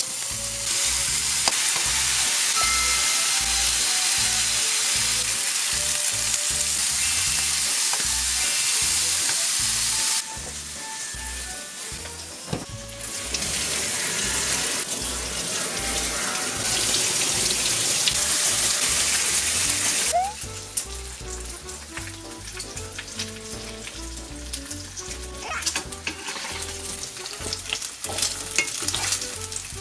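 Pork belly slices sizzling loudly in a frying pan, over background music with a steady low beat. Partway through, a kitchen tap runs water over leaves. Near the end there are quieter scattered clicks of metal tongs.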